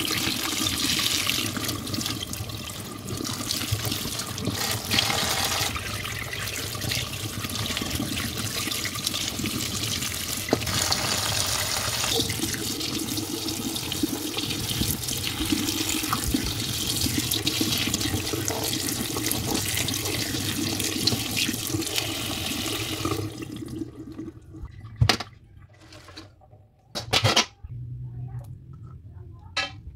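Kitchen tap running steadily onto lettuce and parsley being rinsed by hand in a stainless steel colander. Near the end the water stops, and a few sharp knocks follow.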